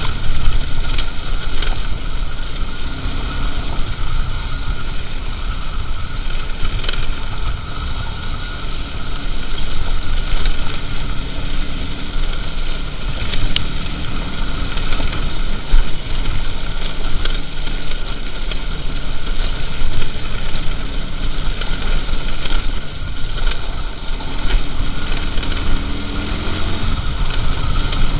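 Motorcycle being ridden over a rough gravel and dirt track: the engine runs under wind rumble on the microphone, with occasional sharp knocks as the bike jolts over stones.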